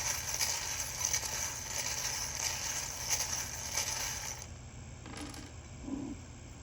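Small charms and letter pieces being shaken and stirred together, a dense rattling and clicking that stops about four and a half seconds in.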